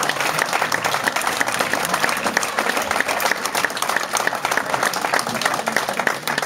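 Audience applauding: many hands clapping densely at a steady level.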